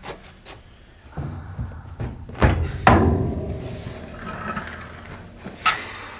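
Chiropractic pulling adjustment of the neck and spine: two sharp cracking knocks about half a second apart, a couple of seconds in, then a lighter knock near the end.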